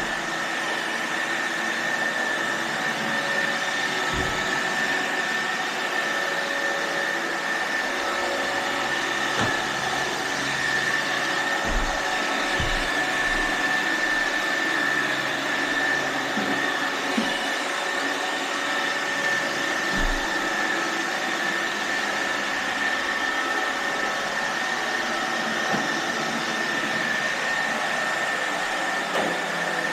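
iRobot Roomba robot vacuum cleaners running: a steady whirring noise with a constant high whine, and a few soft knocks here and there.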